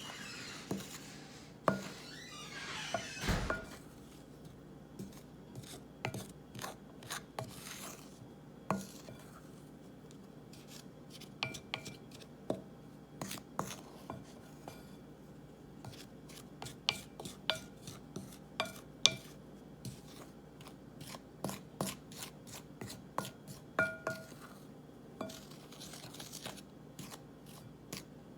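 A utensil stirring dry baking ingredients (flour, baking soda, salt, baking powder) in a mixing bowl: irregular clinks and taps against the bowl, some ringing briefly, with a dull thump about three seconds in.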